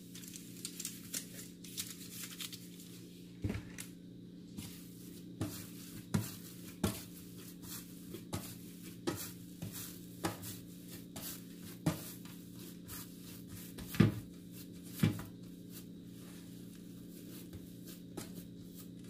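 Hands tearing off pieces of risen bread dough and shaping them, with irregular soft pats, rustles and knocks on the board and metal baking tray, two louder knocks about two-thirds of the way through. A steady low hum runs underneath.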